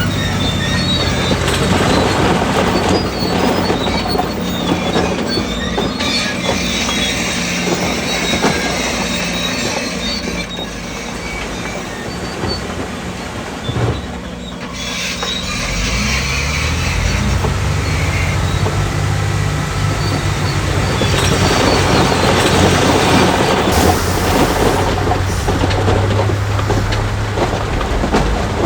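Shantu DH17 crawler bulldozer at work, its diesel engine running with the metallic squeal and clatter of steel tracks. The engine grows louder about two-thirds of the way through.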